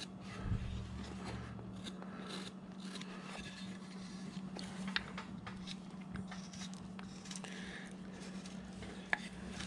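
Hand carving tools paring and scraping wood in short, quiet strokes, rounding the back of a carved head, with a couple of sharper clicks. A faint steady low hum runs underneath.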